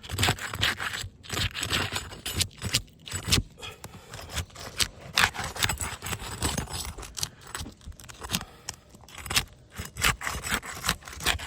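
Steel snake bar scraping and clinking against asphalt shingles and roofing nails in quick, irregular strokes, as a wind-creased shingle is pried up and its nails worked loose.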